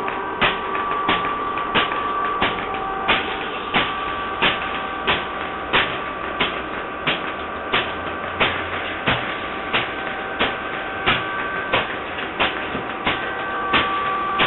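MIDI-controlled scrap-metal robot knocking in an even rhythm, about three knocks every two seconds, over a steady noisy hum with a few held tones.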